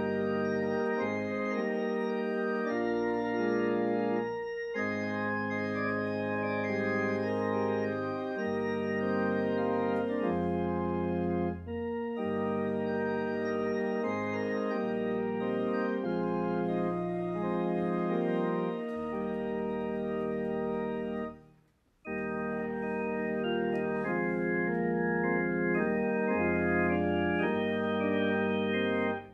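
Church organ playing a hymn in sustained chords, with short breaks between phrases. About 22 seconds in there is a brief, near-silent pause before the next verse begins.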